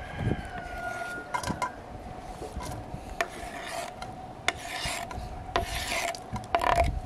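A knife blade scraping across a wooden cutting board, pushing cut cranberries into an enamel basin, with several sharp taps and short rasping scrapes.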